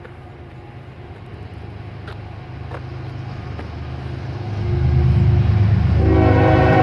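Approaching Norfolk Southern diesel freight locomotive: a low engine rumble growing steadily louder, rising sharply about two-thirds of the way in. Its multi-tone air horn sounds again near the end.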